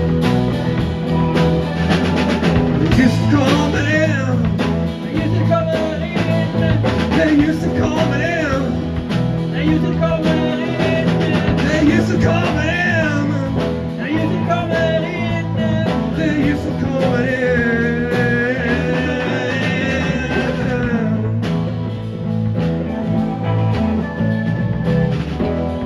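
Rock band playing an instrumental break, with bass, drums and guitars, under a lead melody line that bends and wavers in pitch; the lead stops about 21 seconds in and the band carries on.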